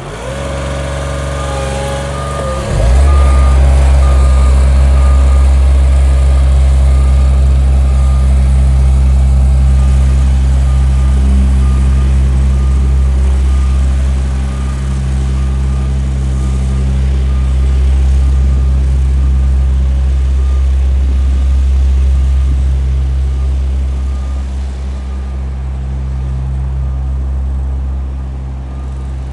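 Small CAT road roller running on asphalt with a loud deep steady hum that gets much louder about three seconds in, while a reversing alarm beeps steadily.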